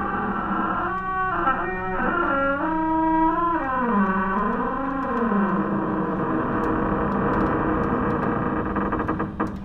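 Eerie background music: a sustained distorted tone whose pitch wavers and bends up and down for several seconds, then settles into a steady held chord that fades near the end.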